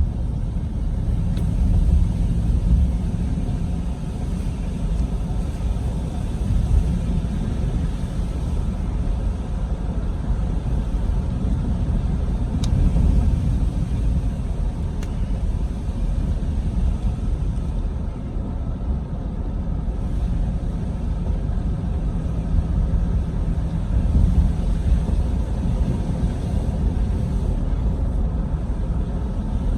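Steady low rumble of engine and tyre road noise inside a moving vehicle's cabin while driving.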